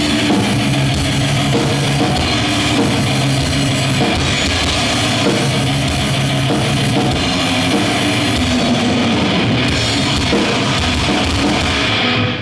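Death/thrash metal band playing live at a soundcheck: distorted electric guitars, bass and a drum kit with cymbals, loud and dense, breaking off abruptly near the end.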